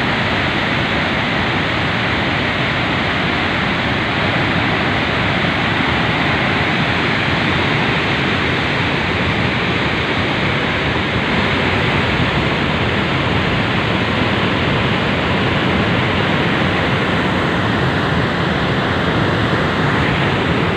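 Water pouring through the open spillway gates of a dam: a loud, steady rush of water.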